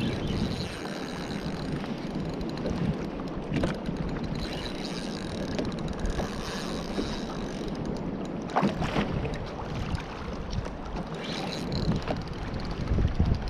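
Wind buffeting the microphone over water sloshing around a fishing kayak, with a few brief knocks, the sharpest about a third of the way in and again past the middle.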